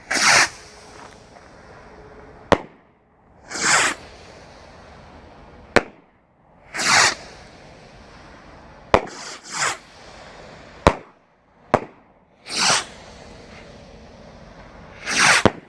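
Blastwave X-Force firework rockets launching one after another, about six in all, roughly every three seconds. Each goes off with a loud rushing whoosh and is followed about two seconds later by a sharp bang.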